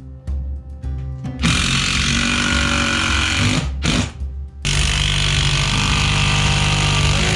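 A power tool running in two long bursts of about two and a half seconds each, with a short break between them, over background music.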